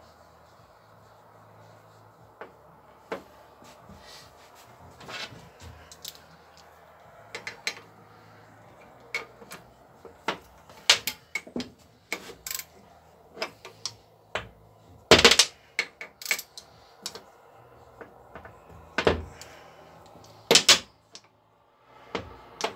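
Metal engine parts and hand tools being handled: irregular clicks and knocks, with a few louder knocks in the second half, over a faint steady hum.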